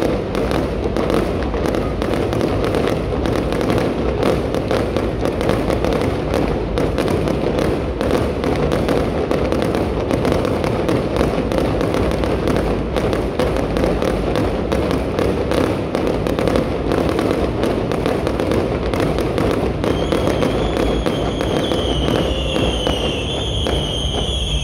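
Aerial fireworks going off in a dense, continuous barrage of crackling and popping bursts. Near the end, a wavering high tone comes in over the crackle.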